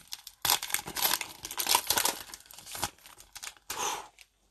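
Wrapper of a Panini Mosaic basketball card pack being torn open and crinkled: a dense run of rustling for about two and a half seconds, then a few scattered crinkles and one short rustle near the end.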